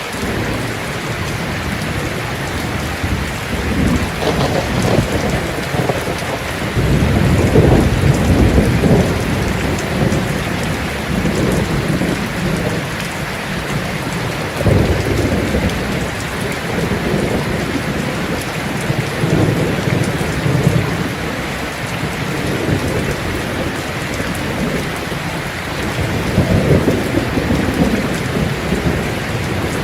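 Heavy rain falling steadily on a tin roof, with rolling thunder rumbling up several times, loudest about a quarter of the way in.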